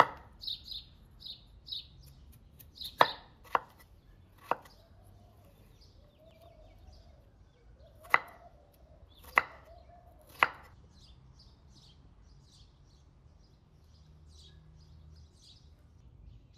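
Kitchen knife slicing through a raw peeled potato and knocking on a wooden cutting board: about seven sharp chops, unevenly spaced over the first ten seconds or so.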